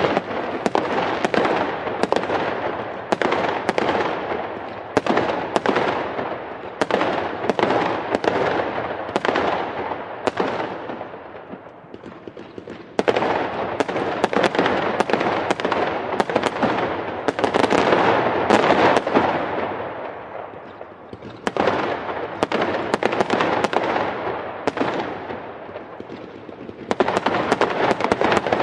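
Fireworks going off: a rapid string of sharp bangs over dense crackling. The volleys ease off about twelve seconds in and again around twenty seconds, then pick up with fresh barrages.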